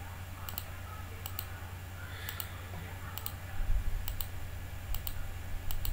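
Computer mouse clicking about once a second as points are placed one after another on a map, each click a quick double tick. A few dull low thumps come about two-thirds of the way in and again near the end, over a steady low hum.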